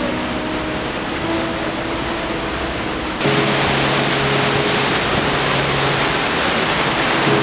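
Steady rush of a waterfall cascading over rock ledges. It jumps louder about three seconds in, when the sound comes from right beside the falling water.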